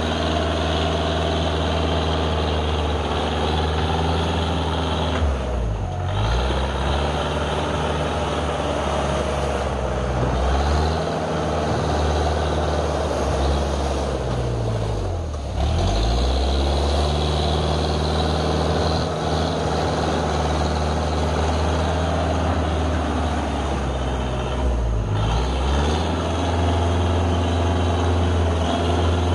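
Dresser 100G track loader's engine running steadily as the crawler loader works the track. Three times, about 6, 15 and 25 seconds in, the engine note sags briefly and picks back up.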